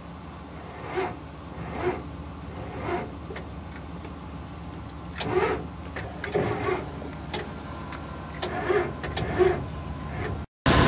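Ford E-350 van's diesel engine cranking on the starter very slowly, labouring in uneven pulses about once a second without catching, which points to weak batteries. The sound cuts off near the end.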